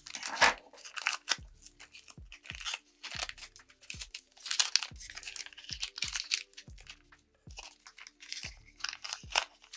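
Plastic wrapping on Pokemon trading-card packaging being crinkled and torn open by hand, in quick irregular crackles and rips, with soft background music underneath.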